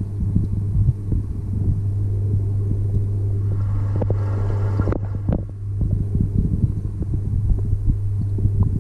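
Steady low hum of a submerged electric pond pump, heard underwater, with irregular low rumbling and crackling over it and a brief rushing noise about four seconds in.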